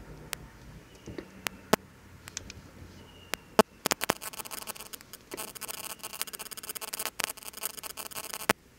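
Crinkling plastic: scattered sharp clicks, then a dense crackling for about four and a half seconds that stops suddenly near the end.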